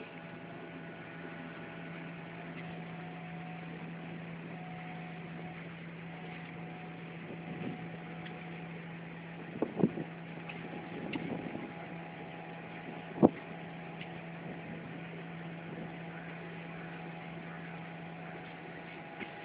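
Steady running noise of a moving passenger train heard from inside the carriage, a constant hum under an even rumble. Two short knocks come about halfway through and a single louder knock about two-thirds in.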